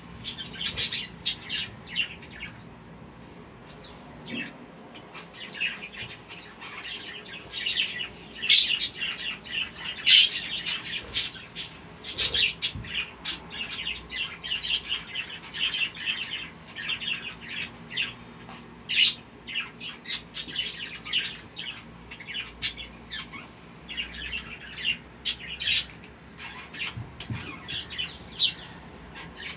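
Several budgerigars chattering in a cage: a busy stream of short chirps and squawks, densest around the middle.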